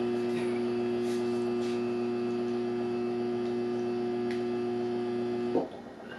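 Steady electrical mains hum that cuts off suddenly near the end.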